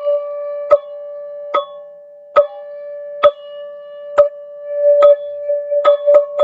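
Teal ZenTube chime ringing one sustained tone with overtones, struck about once a second and more quickly near the end.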